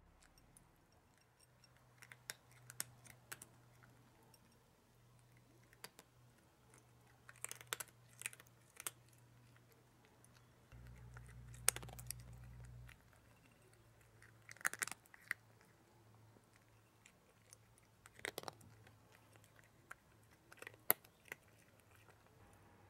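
A cat eating from a ceramic bowl, chewing its food in short spells of crisp clicking crunches with pauses in between.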